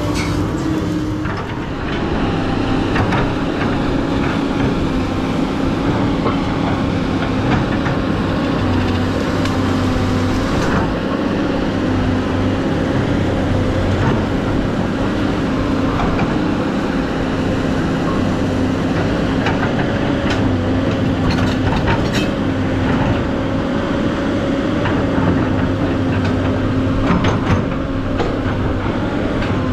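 SANY SY215C excavator running steadily while it works, a constant whine over the engine note, the pitch dropping slightly about a second and a half in, with scattered clicks and knocks.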